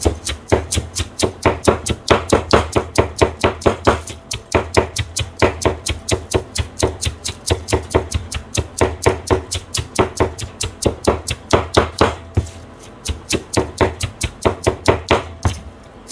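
A cleaver rapidly mincing cabbage leaves on a cutting board: quick, even chops at about four to five a second, with a short pause about twelve seconds in.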